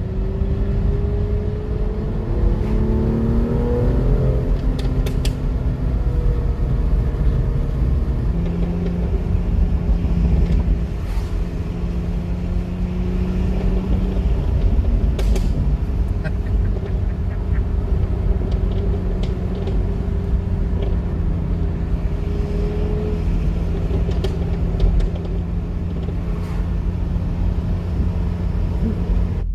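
Jaguar F-Type's supercharged V8 running under load while driving, a deep steady drone. Its pitch rises between about two and four seconds in, then holds fairly level with small shifts. A few short sharp clicks stand out over it.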